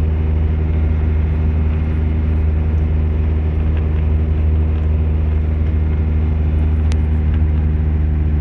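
Bus engine running steadily at an even pitch, with road noise, heard from inside the moving bus. A light click about seven seconds in.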